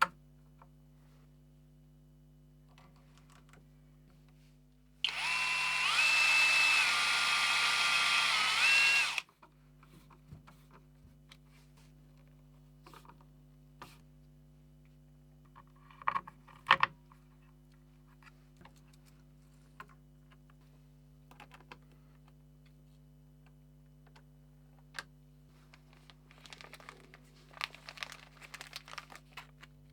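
Handheld power drill running for about four seconds, its motor whine stepping up and down in pitch as the trigger is worked. A few sharp clicks and light taps follow later.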